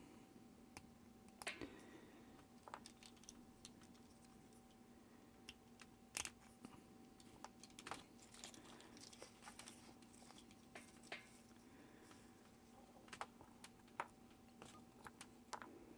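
Faint, scattered small metallic clicks and taps of spring bars being worked out of a Casio G-Shock's lugs, with one sharper click about six seconds in.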